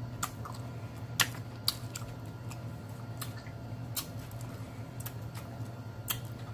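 Close-miked eating sounds: sporadic sharp wet clicks and smacks of a mouth chewing, spaced irregularly, over a steady low hum.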